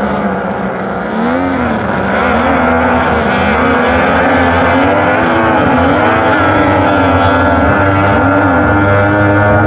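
Several Super E runabout racing boats' outboard engines running flat out together, their pitches wavering up and down. The sound grows louder about two seconds in.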